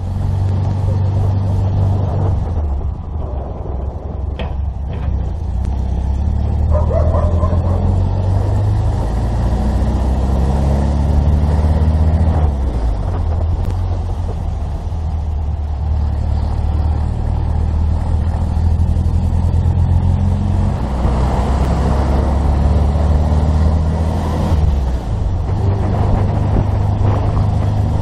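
Volkswagen Beetle's air-cooled flat-four engine running as the car drives along, heard from inside the car, its engine note shifting several times as it changes speed.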